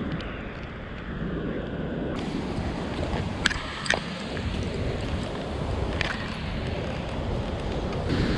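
Steady rush of a mountain stream's falling water, with a few sharp knocks in the middle.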